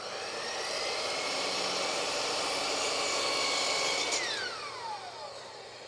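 Compound miter saw running as its blade cuts a 15-degree bevel through a small wooden block. The motor whine holds steady, then about four seconds in the trigger is released and the blade spins down with a falling whine.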